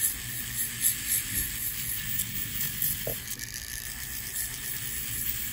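Flex shaft rotary tool spinning a 1-inch sanding disc on a foam Velcro pad against a silver piece at a slow setting: a steady, gritty hiss of abrasive on metal.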